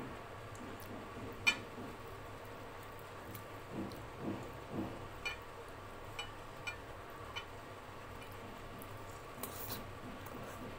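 Close-up eating sounds of luchi (deep-fried puffed bread) and potato curry eaten by hand: soft chewing with wet mouth and lip clicks. The sharpest click comes about a second and a half in, and several smaller ones follow later.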